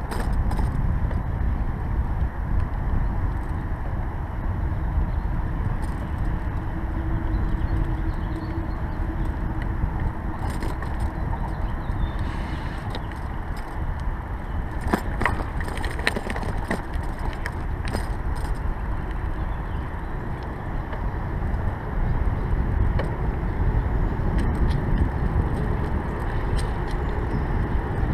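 Riding a bicycle along a paved path: steady wind rumble on the microphone over tyre and road noise, with a few sharp clicks about halfway through.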